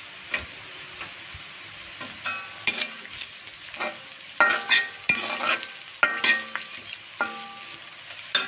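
Sliced onions and green chillies frying in oil in a metal kadai: a steady sizzle, with a metal spatula scraping and knocking against the pan as it stirs. The pan rings briefly after several of the strokes, and the stirring is busiest in the middle.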